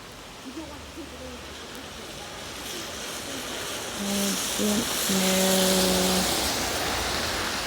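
Heavy rain with gusting wind, swelling to a loud hiss about three seconds in. A person hums a few short steady notes in the middle of it.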